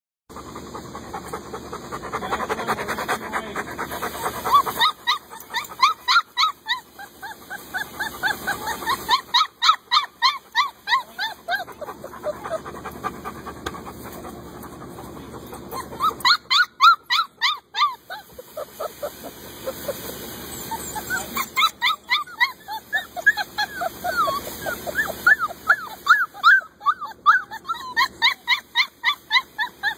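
Puppies yelping and whining: many short, high-pitched yips in quick overlapping runs, with a lull around the middle.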